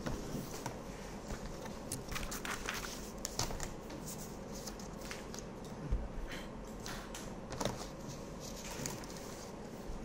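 Faint handling noises: scattered clicks and rustles over a steady electrical hum, with a low thump about six seconds in.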